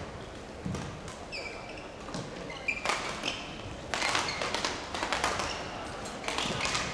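Badminton rally: rackets striking the shuttlecock in sharp cracks, with shoes squeaking briefly on the court mat.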